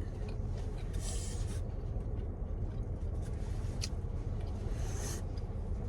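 Steady low rumble inside a car, with light rubbing or handling sounds about a second in and near the end, and one sharp click in between.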